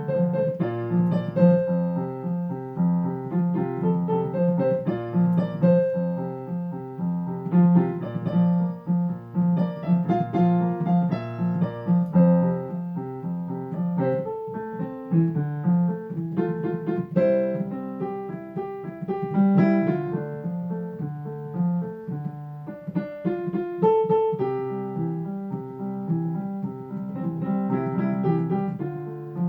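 Piano music: a steady repeated bass figure under changing chords and a melody.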